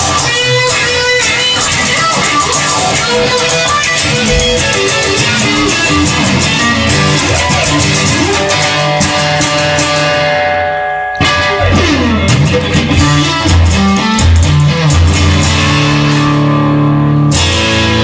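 Guitar-led rock music with electric guitar and bass. About ten seconds in the upper range fades away and the sound dips briefly, then the band comes back in with long held bass notes.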